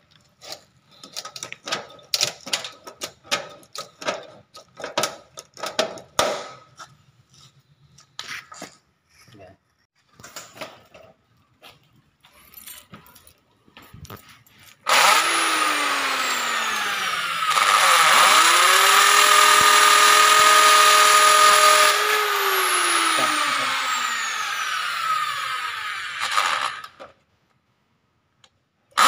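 Irregular clicks and metal knocks, then about halfway through a corded electric drill starts and runs for about twelve seconds, drilling a rivet hole through a steel stud frame. Its pitch slides, holds steady, then falls as it slows, and it stops shortly before the end.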